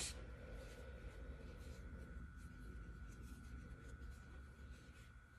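Faint rustling and rubbing of wool roving being rolled by hand into a ball, with a brief louder rustle at the start.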